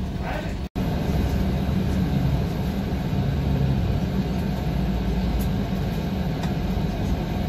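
Bus engine running with road noise, heard from inside the driver's cab while driving: a steady low hum. The sound cuts out for an instant just under a second in.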